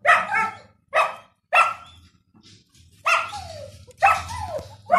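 Five-week-old puppies giving short, high-pitched play barks, about six yaps over a few seconds, as they tug at a rag on a stick.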